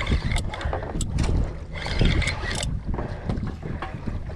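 Steady low rumble and wind noise aboard a fishing boat at sea, with scattered short clicks and knocks.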